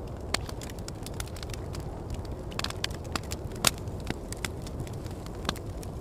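Campfire crackling with sharp, irregular pops, the loudest a little past the middle, over a steady low rumble of wind.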